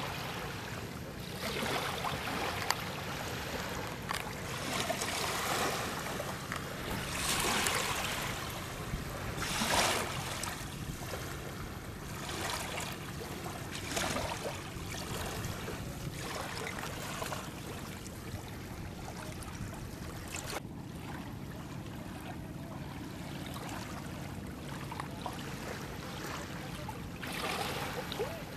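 River water splashing and sloshing against a small wooden fishing boat in irregular rushes, over a faint steady low hum.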